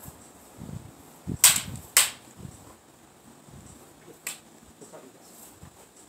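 Two sharp clacks about half a second apart, a little over a second in, and a fainter one about four seconds later: sparring weapons striking each other. Under them, wind rumbles on the microphone.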